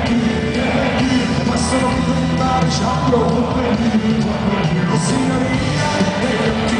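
Live folk-rock band playing loud music with a voice singing, heard from among the concert audience.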